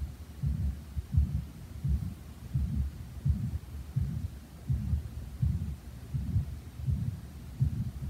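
A human heartbeat recorded with a smartphone stethoscope app and played back over a speaker: low, evenly spaced beats about every three-quarters of a second, a "squash, squash" rather than a clean thump. The owner puts this down to severe mitral valve prolapse with regurgitation.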